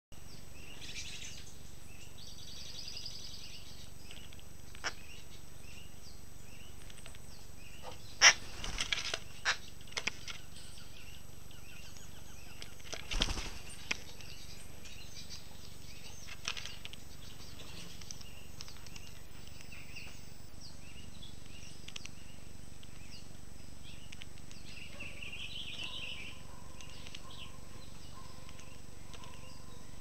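Scattered chirps of small birds over a steady outdoor hiss. A few sharp knocks come about eight to ten seconds in and again about thirteen seconds in: an acorn woodpecker's bill striking the feeder tray as it pecks at seed.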